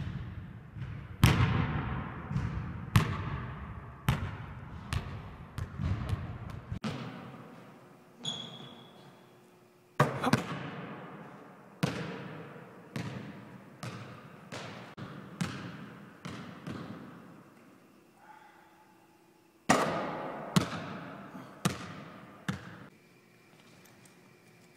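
A basketball bouncing on a hardwood gym floor, each bounce a sharp smack that rings out in the hall's echo. It comes in runs of bounces that get quicker and quieter as the loose ball settles.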